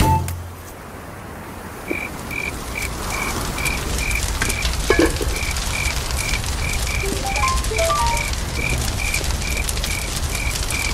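Night ambience: a frog calling a regular series of short, high notes, about two or three a second, over the crackle of a campfire.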